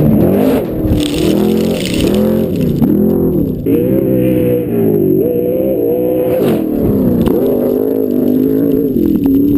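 Desert-racing trophy truck engine revving hard, its pitch rising and falling again and again as it is worked over rough ground. A stretch of rushing noise rides on top from about one to two and a half seconds in.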